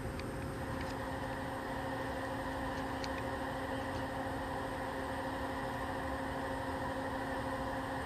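A steady, unchanging hum over an even hiss, with a few faint ticks in the first three seconds.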